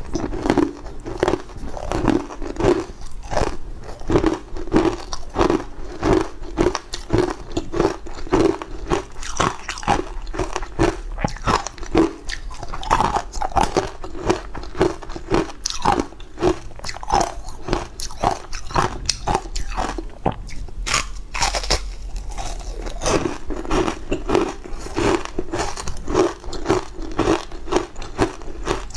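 Close-miked crunching and chewing of sweet ice coated in green powder, bitten and chewed in a quick, steady run of crunches, several a second.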